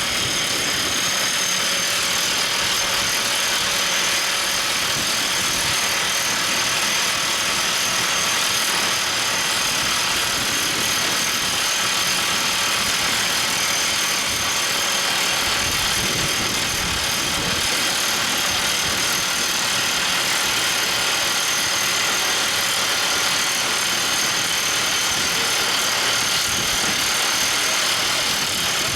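Everdigm ECD45E top hammer drill rig running steadily, a dense machine noise that does not change for the whole stretch.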